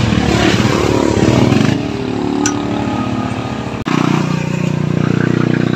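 A motorcycle engine running close by, with a fast, even firing pulse. About four seconds in the sound breaks off abruptly and resumes as a steadier running note.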